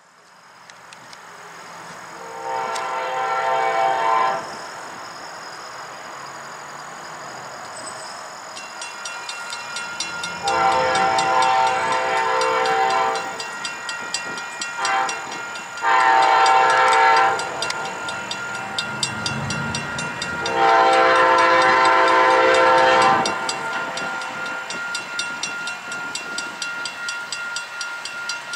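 Amtrak Sunset Limited's locomotive horn, a chord of several notes, sounding five blasts: long, long, short, long, long, in the grade-crossing pattern as the train approaches. Grade-crossing bells ding rapidly from about a third of the way in.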